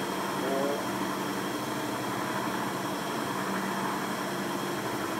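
Steady hum of running machinery with a constant low tone, unchanging throughout.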